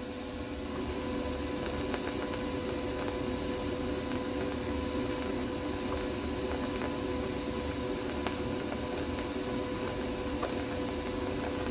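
TIG welding arc on mild steel flat bar still covered in its mill scale: a steady hiss with a steady hum-like tone, broken by a few sharp crackles as the unground surface throws spatter.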